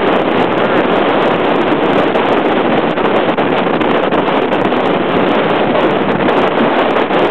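Strong tropical-storm wind buffeting the camera's microphone in a loud, steady rush of noise, with heavy surf breaking underneath.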